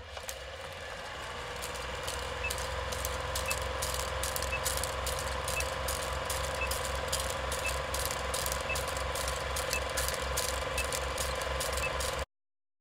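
Old film projector sound effect: a steady mechanical whir and hum with a rhythmic low flutter and scattered clicks, and a short high blip about once a second as the film countdown ticks down. It cuts off suddenly near the end.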